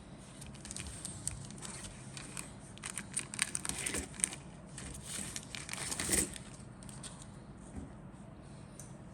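Plastic packaging crinkling and crackling as it is handled, busiest in the middle and thinning out near the end.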